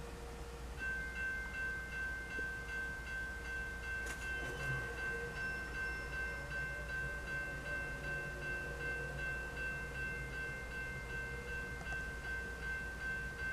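Railroad crossing warning bell starting to ring about a second in, a steady, rapidly repeating ding that keeps going as the crossing activates for an approaching train. A sharp click comes about four seconds in.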